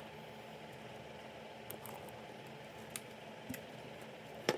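Quiet room hiss with a few faint clicks and one short knock near the end.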